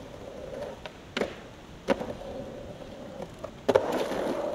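Skateboard knocking sharply against concrete twice, then a louder knock, after which its wheels roll steadily over the concrete.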